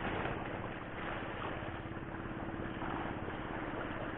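An engine running steadily with an even, rapid low throb and a constant hum, over a steady hiss.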